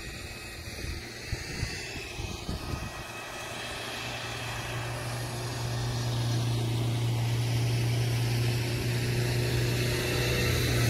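An engine's steady drone, growing steadily louder throughout as it approaches.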